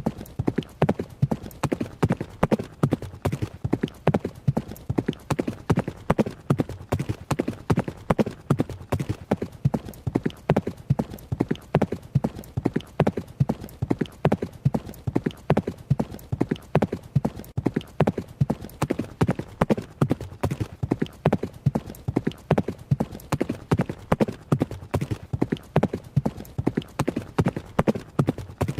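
Horse running: hoofbeats in a steady, even rhythm, several knocks a second, without a break.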